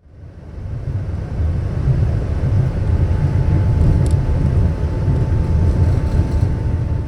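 Kanazawa Seaside Line rubber-tyred automated train running, heard from inside the car: a steady low running noise, joined about three seconds in by a thin steady whine.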